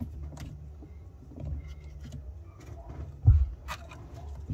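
Thick battery cables being handled around a car battery: scattered clicks and rustling of the cables, with one dull thump about three seconds in.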